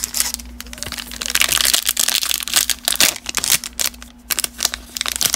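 Plastic trading-card pack wrapper being torn open and crinkled by hand, a run of sharp crackling tears and rustles, loudest in the middle.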